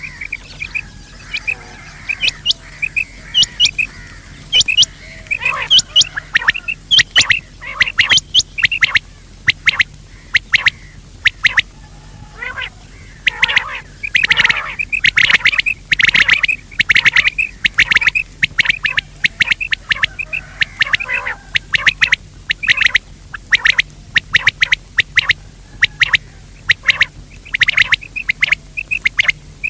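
Quail calling over and over: short, sharp notes in quick runs, with a faint steady hum underneath.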